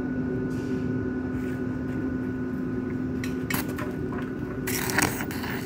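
Steel C-channel sections clanking as they are handled and shifted into line. A few knocks come about three and a half seconds in, and a louder metallic clatter comes near the end, over a steady machine hum.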